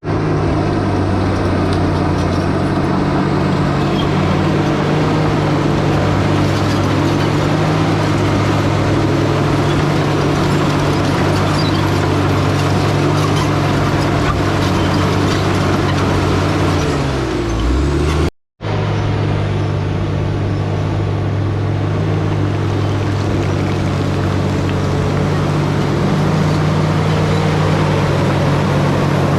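Diesel engine of a heavy earthmoving machine running hard under load, steady for most of the time; about seventeen seconds in its pitch sags as it lugs, then the sound breaks off for a moment and the engine is heard running steadily again.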